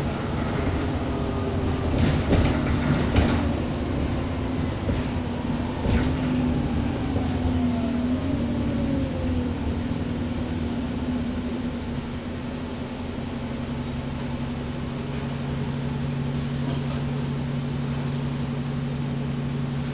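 Alexander Dennis Enviro400 double-decker bus heard from inside, its diesel engine and transmission running as it drives. A whine falls in pitch over the first half, with a few knocks and rattles early on, then a steadier low hum settles in.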